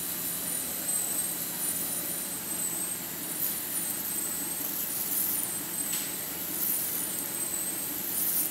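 Narrow-web drum slitter rewinder running steadily, its motor humming and rollers whirring as film is slit and wound onto rows of cores on the rewind shafts. Faint high-pitched whistles come and go over the steady noise.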